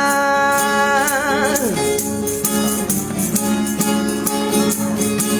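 A busker's song: the last sung note is held with a slight waver and ends about one and a half seconds in. Then the guitar accompaniment carries on alone with a steady shaken, rattling beat.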